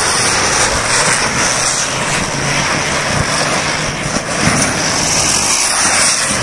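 Four chakri ground-spinner firecrackers spinning at once, giving a loud, steady hissing rush.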